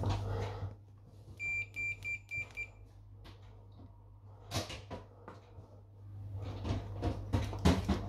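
A digital multimeter's continuity beeper sounds five short, evenly spaced beeps at one pitch, as the boiler's pump flow microswitch is made and broken across the probes. Handling clicks and rustles follow, the sharpest near the end, over a low hum that stops under a second in and comes back near the end.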